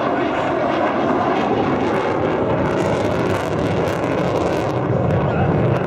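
A fixed-wing aircraft flying at an airshow, its engine noise loud and steady throughout.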